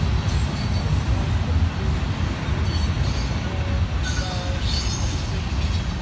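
Freight cars of a manifest train rolling past: a steady low rumble of wheels on rail, with brief faint squeaks now and then.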